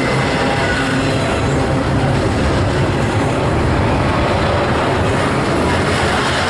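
Canadian Pacific freight train rolling past, with a loud, steady rumble of wheels on rail.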